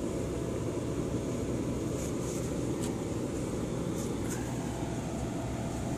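Steady low machine hum, like an RV's air conditioning running, with a few faint scratchy rustles of cat fur close against the microphone.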